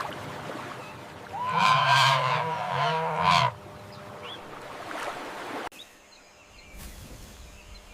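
Flamingo calling: a couple of loud, goose-like honks lasting about two seconds, a little over a second in.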